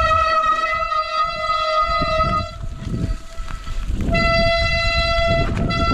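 Mountain bike disc brakes squealing on a wet, muddy trail: a steady pitched squeal that stops about two and a half seconds in and starts again about a second and a half later, over tyre rumble and knocks from the ground.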